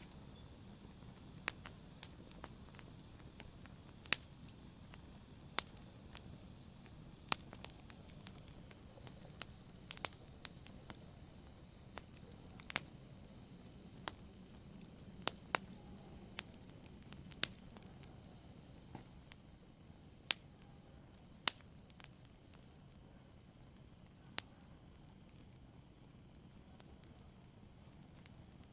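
Wood logs burning in a fireplace, crackling with sharp, irregular pops over a faint low rumble of the flames. The pops come a few at a time and thin out over the last several seconds.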